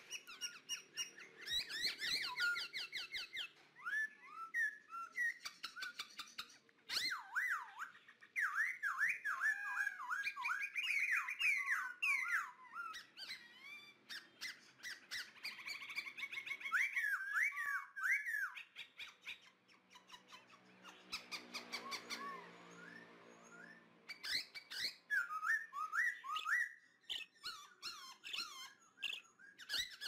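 Birds chirping and squawking in quick, repeated gliding calls, in several busy spells with short pauses, with scattered crackling clicks from a wood fire.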